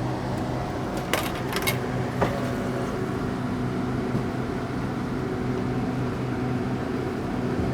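A vending machine hums steadily. A few sharp metallic clicks come between about one and two seconds in, as coins go in or the selection is pressed.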